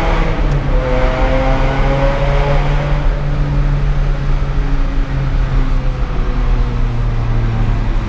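Ferrari 550 Maranello V12 engine under load in a tunnel, its pitch rising for about three seconds, then easing off and slowly falling, over a steady low drone and road noise.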